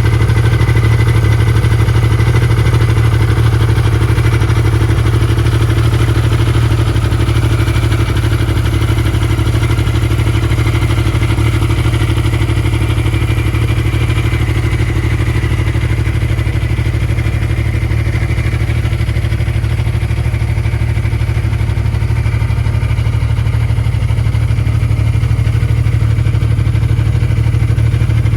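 The Rage Hurricane R's engine idling steadily with a low, even hum and no revving.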